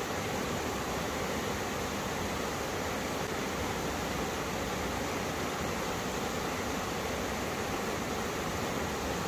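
Mountain stream rushing where two valley streams meet, a steady full rush of water over rocks.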